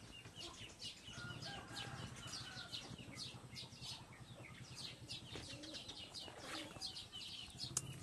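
Small birds chirping faintly, a rapid run of short, high chirps, each falling in pitch, several a second.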